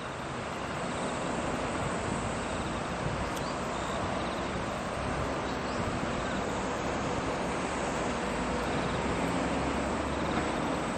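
Distant jet airliner approaching to land, heard as a steady broad rumble that slowly grows louder.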